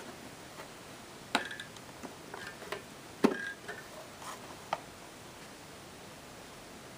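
Clicks and knocks of hard parts being handled, about eight over three seconds, a few ringing briefly, the loudest knock about three seconds in, over a steady low hiss. The vacuum cleaner is not running.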